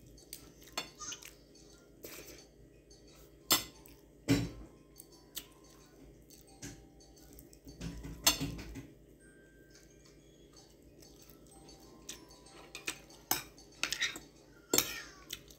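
Metal fork and spoon clinking and scraping against a plate while eating. The clinks are sharp and come at irregular intervals, a few of them louder.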